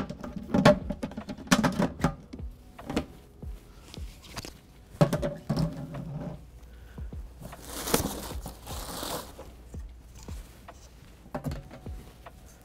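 Plastic bucket lids being handled and pressed onto hydroponic buckets: irregular knocks and clatters in bunches, with a longer scraping rustle about eight seconds in.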